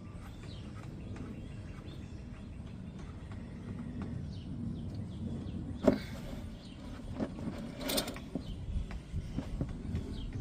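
Engine oil draining from the open drain plug of a Jaguar XK's 5.0-litre V8 into a drain pan, a steady low rush, with a sharp knock about six seconds in and another near eight seconds.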